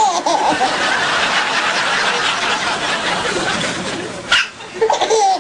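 Baby hiccuping, with one sharp, sudden hiccup about four seconds in, over people laughing and chuckling.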